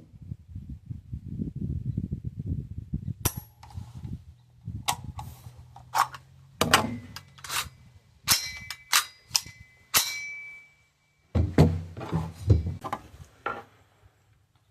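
Metallic clicks and clangs from a 3D-printed AR-15 being worked by hand, its action cycled to deal with rounds that fail to fire. A low rumble of handling comes first. About halfway through, one clang rings on for about two seconds.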